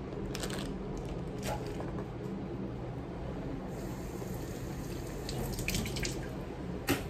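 Kitchen tap running for a couple of seconds in the second half as carrots are rinsed under it, with a few short knocks and clatters of handling.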